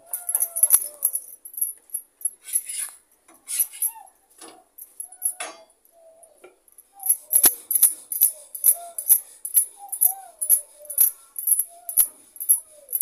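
Glass bangles clinking on a wrist as hands pat and work a ball of dough on a wooden board. The clinks are sparse at first, then come quickly, about two or three a second, from about halfway, with short squeaks between them.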